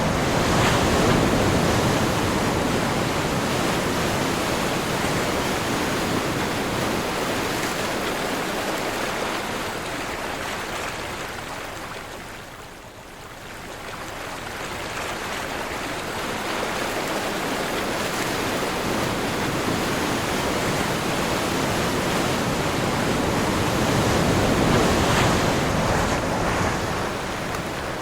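Sea waves surging and washing with wind. The noise swells near the start, sinks to a brief lull about halfway through, and builds again toward the end.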